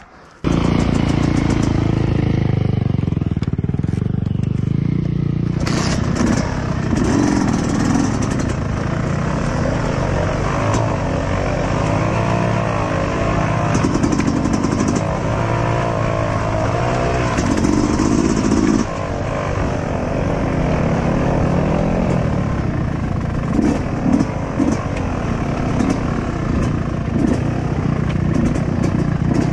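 Dirt bike engine cutting in suddenly, then running while the bike is ridden down a rough trail, its pitch rising and falling with the throttle.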